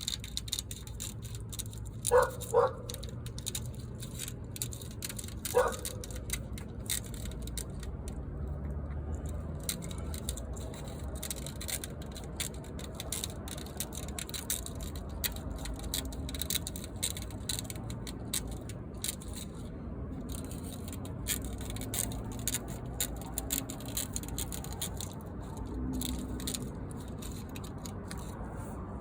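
Window screen mesh being cut and handled: a steady run of small clicks and crinkles. Three short, sharp, louder sounds come near the start, two close together and a third a few seconds later.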